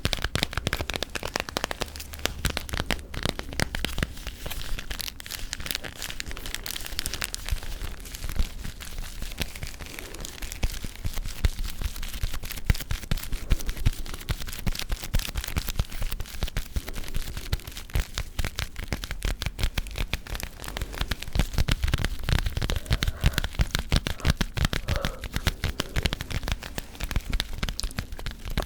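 Close-miked ASMR gum chewing and tapping: a dense, continuous run of small clicks, snaps and crackles.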